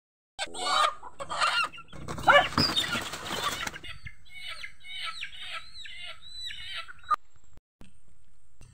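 Two chickens held upside down by the legs calling and flapping their wings. The flapping and calling are loudest about two to four seconds in. Then comes a run of short, evenly spaced high bird calls.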